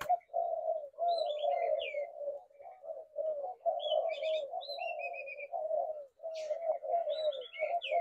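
Spotted doves cooing, several overlapping so the low coos run on almost without a break. Short high chirps and trills from other small birds come in now and then.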